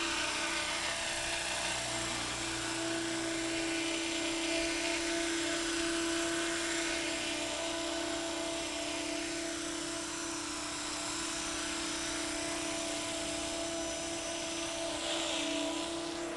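Thunder Tiger Innovator MD 530 radio-controlled model helicopter hovering: a steady whine from its motor and rotors, with a hiss that swells and fades every few seconds. The pitch dips slightly near the end.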